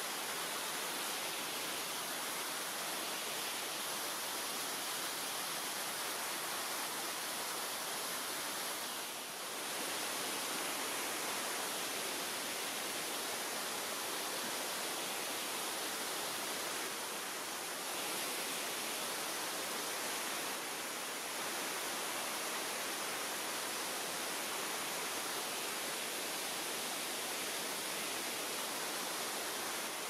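Mountain stream rushing down partly frozen waterfalls: a steady, even rush of water, with a brief slight drop in level about nine and eighteen seconds in.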